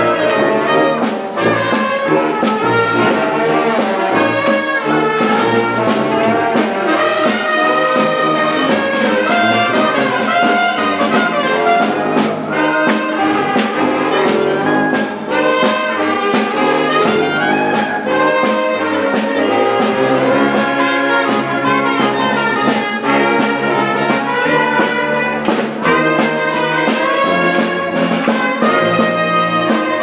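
Street brass band playing loudly without a break: trumpet, trombone, saxophones and sousaphone together, with some sharp percussion hits.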